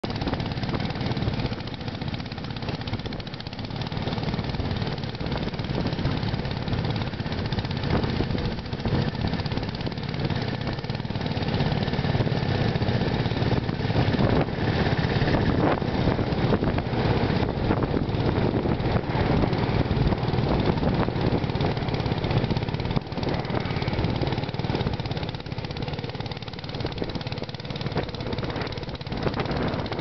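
Martin Markham Colt horticultural tractor's small engine running steadily under load as it pulls a single-furrow plough, growing a little louder toward the middle.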